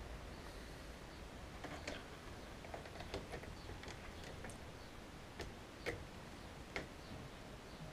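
About ten faint, irregularly spaced clicks and taps, the sharpest about six seconds in.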